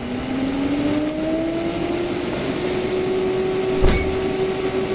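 A vehicle's air-conditioning blower fan spinning up after being switched on, its hum rising in pitch over about two seconds and then holding steady. A single knock about four seconds in.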